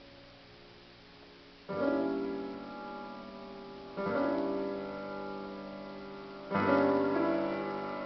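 Solo piano: a soft fading passage, then three full chords struck about two and a half seconds apart, each left to ring and die away.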